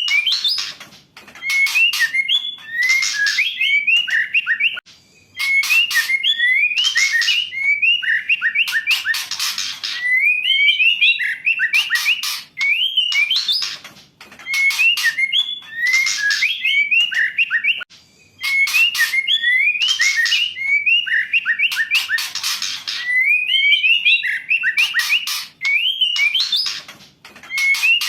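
Female white-rumped shama calling: phrases of short rising whistled notes mixed with harsh rasping notes, repeated again and again with brief pauses between them. This is the kind of female call used to lure a male shama that is reluctant to sing into singing.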